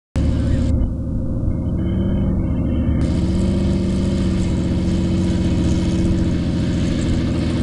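Piston engine of a small two-bladed Robinson helicopter running steadily on the ground, with fine rapid pulsing, as its rotors turn slowly before takeoff.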